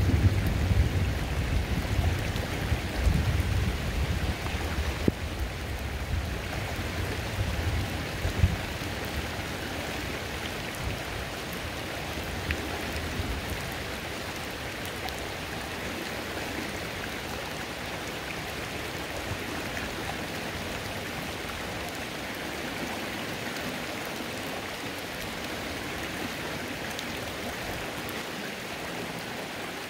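Rain falling on a flowing creek: a steady hiss of running water and raindrops. A low rumble of thunder is loud at the start and fades away over the first ten seconds or so.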